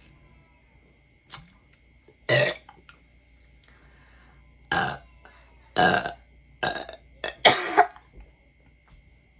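A woman belching, about five loud burps in a row over a few seconds, the last the longest and loudest. The burps are brought on by drinking Sprite, a carbonated soda.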